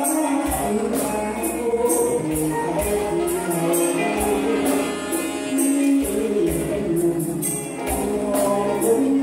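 Live band playing a Thai song with a male singer, keyboard and drum kit, over a steady high ticking beat of a few strokes a second.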